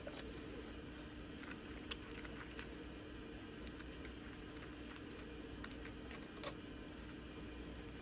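Faint, scattered light clicks and taps of small items being handled at a work table, over a steady low electrical hum.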